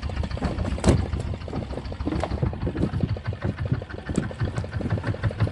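A fishing boat's outboard motor idling with a fast, even low putter, with a few sharp knocks over it.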